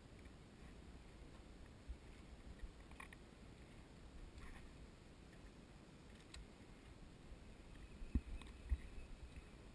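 Quiet lakeside ambience: small waves lapping at a wooden dock, with a few faint clicks and two dull knocks about a second before the end.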